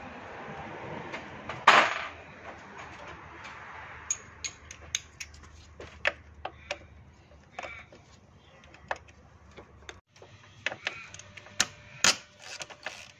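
Ratchet with a hex-bit socket loosening the Allen bolts on a throttle body: scattered short, sharp clicks from about four seconds in. Before that, a rustle with one loud knock.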